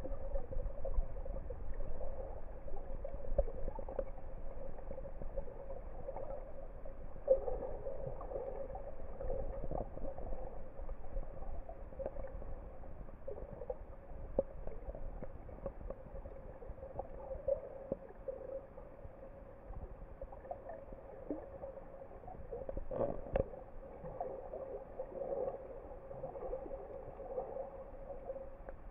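Muffled underwater sound picked up by a submerged camera: a steady hum with shifting water noise and scattered faint clicks, the loudest crackle about 23 seconds in.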